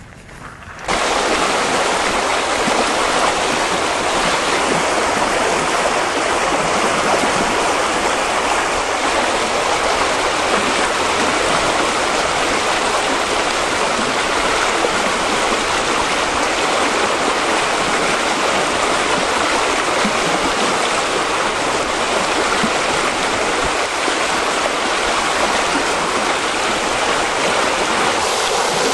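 Floodwater rushing steadily through a washed-out breach in an embankment, coming in suddenly about a second in.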